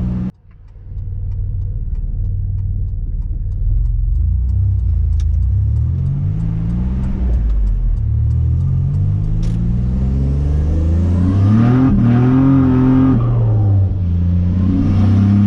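Nissan Navara's VG30 3.0-litre V6 engine idling, then revving up and accelerating twice, the second run the louder and longer.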